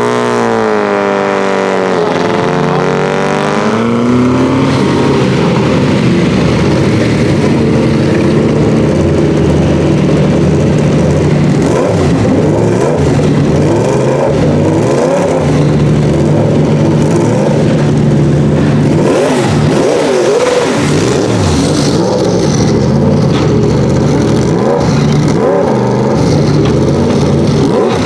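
Sauber Mercedes C9's turbocharged 5.0-litre V8 at low revs. Its pitch falls away over the first couple of seconds, then it runs at a steady low note with a few brief rises and falls in revs.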